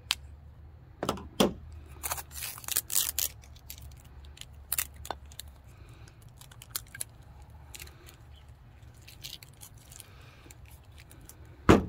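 Packing tape being cut with a folding knife and pulled off the plastic base of a knife sharpener, with a quick run of rasping tears and clicks about two to three seconds in. Scattered clicks and knocks of the parts being handled follow, and a loud knock comes near the end.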